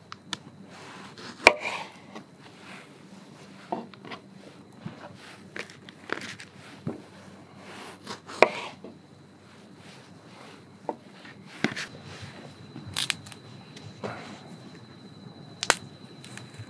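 Small knife cutting the hulls off strawberries on a wooden cutting board: irregular knocks and clicks of the blade against the board, a few of them sharper than the rest.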